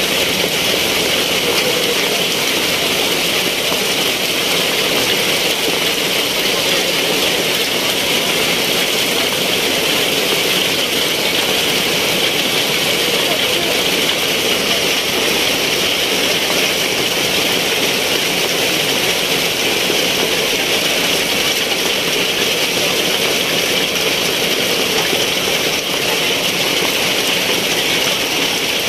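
Heavy downpour of rain, a loud, steady hiss of rain hitting wet pavement and tables.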